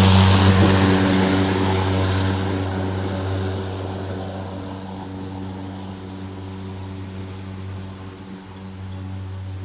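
Lawn mower engine running steadily. It is loudest at the start, fades over the first half, then holds at a lower, even level.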